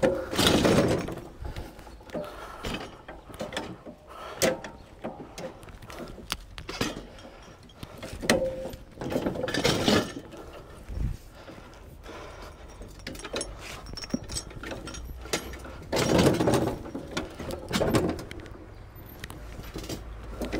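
Irregular metallic clanks, knocks and rattles of a lawn-tractor lift being worked under the rear wheels of a Husqvarna LT130 lawn tractor, with a few louder rattling bursts about a second long near the start, about halfway through and near the end.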